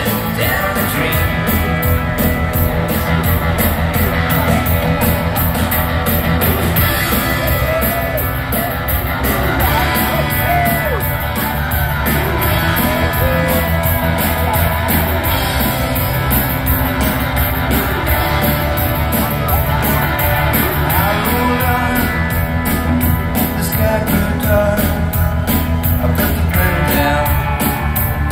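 Live rock band playing a song over a steady beat, with a woman singing the lead, recorded from the audience in an open-air amphitheatre.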